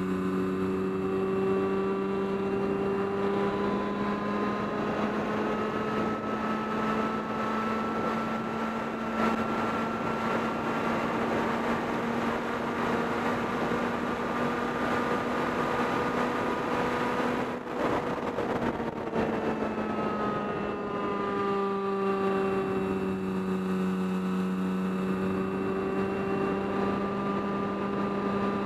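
FPV model aircraft's motor and propeller running steadily, heard from the onboard camera, with a pitch that drifts up and down as the throttle and airspeed change. Rushing wind noise rises through the middle as the aircraft points down at the ice, with a brief dip about eighteen seconds in.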